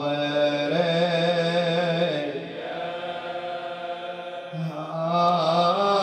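A man's unaccompanied voice chanting a mournful Iraqi Arabic elegy (nai) for Imam Husayn, holding long wavering notes. It softens a little over two seconds in and swells again near the end.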